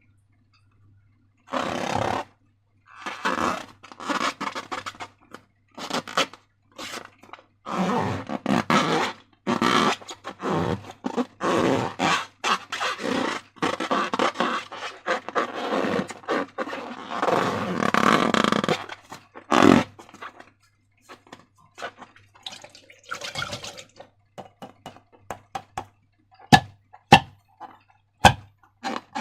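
Slime being squished by hand, making wet squelching and sticky crackling noises in irregular bursts, with a few sharp clicks near the end.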